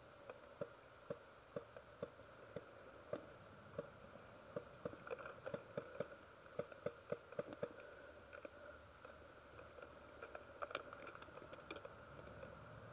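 Faint, irregular clicks and ticks over a steady faint hum. They come about two a second at first, crowd together in the middle, and a sharper click comes near the end.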